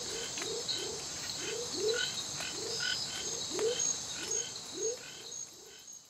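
Rainforest frogs giving short rising chirps, about two a second, over a steady high-pitched insect drone. The sound fades out near the end.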